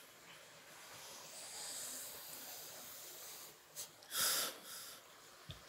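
A reciter's deep breath drawn in close to a microphone about four seconds in, over faint hiss, in a pause between recited verses.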